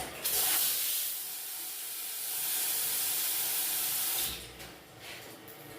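Water jetting hard from a toilet or washroom fixture under strong pump-boosted pressure: a steady high hiss that cuts off about four seconds in.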